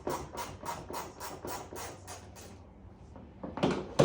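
Hand ratchet clicking evenly, about four clicks a second, as a taillight fastener is backed out by hand. The clicking stops about two and a half seconds in, and two louder knocks follow near the end.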